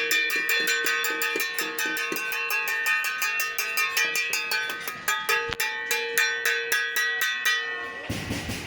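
Metal hoe blades and machetes being struck in a rapid ringing clang, about five strikes a second. Just before the end the clanging stops and a rushing noise takes over.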